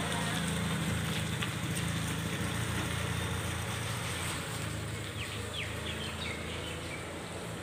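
Outdoor ambience: a steady low rumble with a faint hiss over it, and a few faint high bird chirps about five seconds in.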